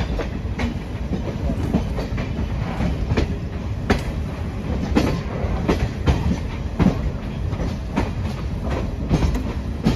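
Express passenger train running on the track: a steady low rumble with irregular clacks of the wheels over the rail joints, about one a second.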